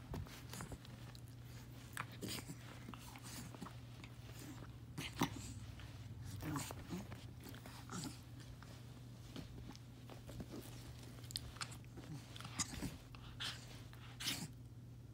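Long-bodied dog squirming and rolling on its back on a carpet, making irregular scuffs, rubs and clicks of its body and mouth, over a steady low hum.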